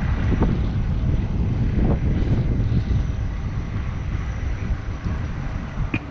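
Wind buffeting the microphone: a loud, fluttering low rumble.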